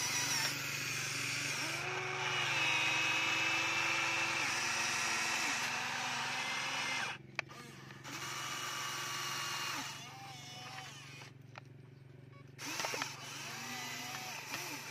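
Electric motors of a Huina RC toy excavator whining as the arm, bucket and turntable move, each motor sound sliding up in pitch as it starts and down as it stops, with two short lulls in the middle. A couple of sharp clicks.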